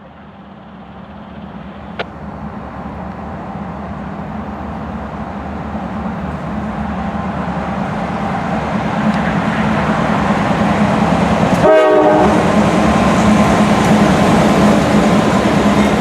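Diesel freight train approaching behind GE C40-9W and ES40DC locomotives: the steady drone of the engines grows louder throughout. A short horn note sounds about twelve seconds in.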